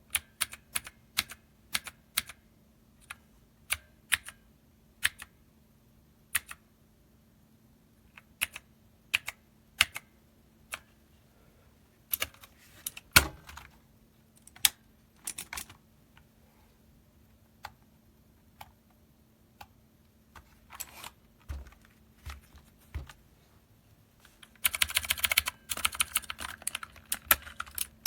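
Keys being pressed on a Dierya T68SE 60% mechanical keyboard with red linear switches: scattered single keystrokes, then a fast run of typing near the end.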